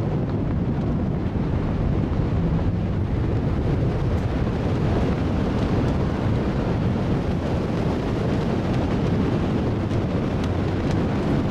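Wind blowing across the microphone on the open deck of a ship under way: a steady, low rushing noise with no distinct events.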